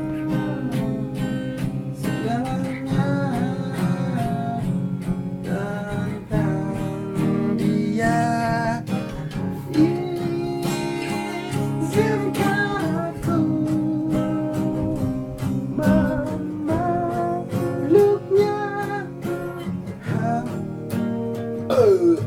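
Acoustic guitar strummed in a steady rhythm, with a melody line over it.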